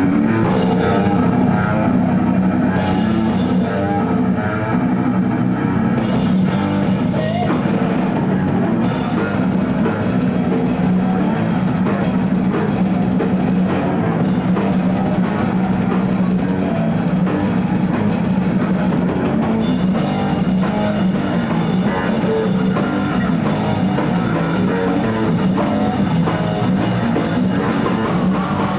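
A rock band playing live: guitars and drum kit going at a steady loud level.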